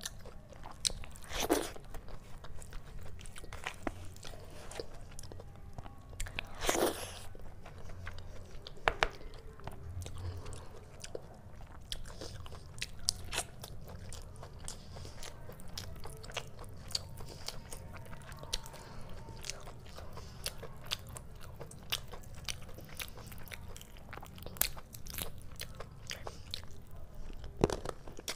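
Close-miked chewing and biting of chicken curry and rice eaten by hand: many small wet mouth clicks and smacks, with louder smacks about a second and a half in, about seven seconds in, and again near the end.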